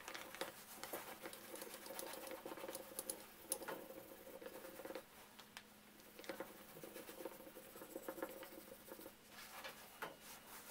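A small pad rubbed quickly back and forth over the rosewood sweep handle of a bit brace, a soft, fast scratching that stops briefly about halfway through and then resumes.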